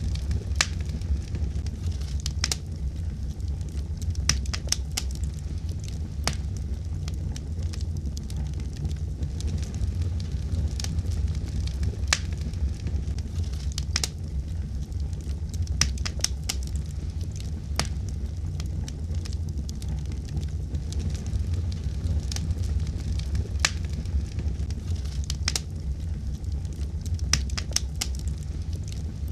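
Wood fire burning in a fireplace: a steady low rumble of the flames with irregular sharp crackles and pops.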